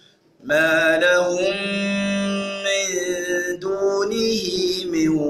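A man's unaccompanied melodic Quran recitation (tajweed chanting). A brief breath pause at the start is followed by long, held, ornamented vowel notes with wavering pitch.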